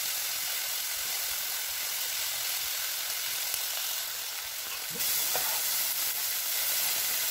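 Shredded cabbage, carrot, bell pepper and peas sizzling as they stir-fry in oil in an uncovered pan, turned with a spatula. It is a steady high hiss that gets slightly louder about five seconds in.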